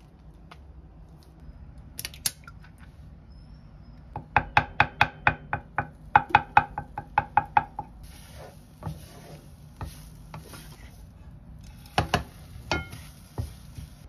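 Eggs being beaten in a bowl: a fast run of about twenty ringing clinks, several a second, for some three seconds. Then scrambled egg being stirred in a small pan with a silicone spatula, with a few sharp knocks near the end.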